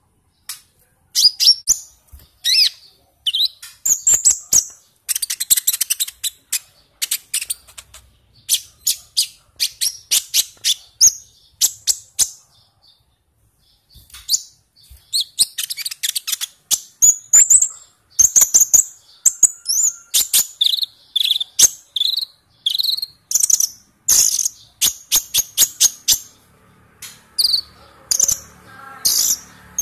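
Sunbird (kolibri ninja, Van Hasselt's sunbird) singing at full stretch: fast runs of high, sharp chirps and twittering trills, with a short pause about halfway through.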